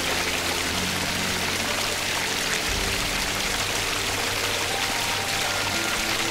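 Steady rushing of running water, under soft background music of held notes that change every second or two.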